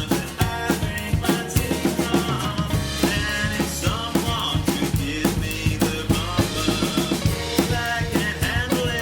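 A band playing an instrumental passage with a drum kit keeping a steady beat under bass and guitar.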